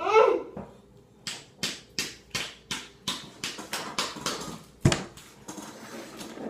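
A short high vocal squeal, then a steady run of sharp hand slaps, about three a second, with a single louder knock about five seconds in.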